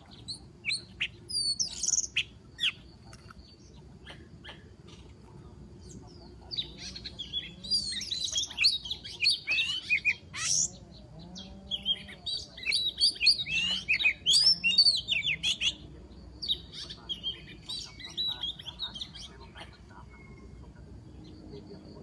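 Oriental magpie-robin singing: short sharp calls in the first few seconds, then long bouts of rich, varied whistled and chattering phrases.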